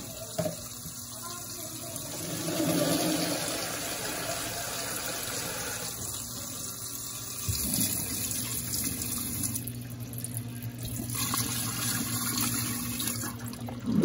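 Water poured in a steady stream from a bucket into the empty plastic tub of a Brastemp Ego BWI01 washing machine, splashing on the tub floor and agitator, starting about two seconds in. A low steady hum runs underneath.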